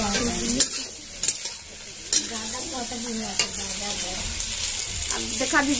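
Vegetables sizzling as they fry in a steel kadhai, stirred with a metal spatula, with a few sharp clinks of the spatula against the pan.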